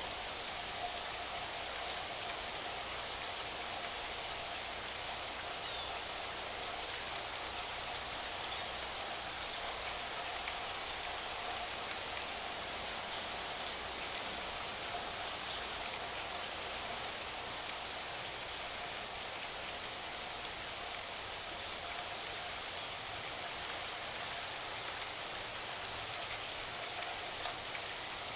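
Steady rain falling, an even hiss with scattered faint drop ticks.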